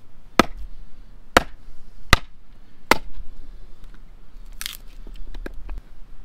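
Axe chopping firewood on a chopping block: four sharp strikes into the wood, a little under a second apart, then a brief rustle and a few lighter knocks.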